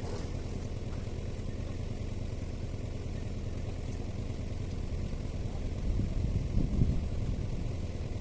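An engine running steadily at an even pace, growing louder for a moment about six to seven seconds in.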